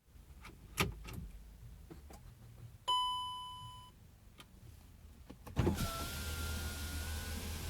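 A few clicks, then a single electronic chime about three seconds in that fades out, then the VW Passat's 1.9 TDI four-cylinder diesel starting about five and a half seconds in and settling into a steady idle.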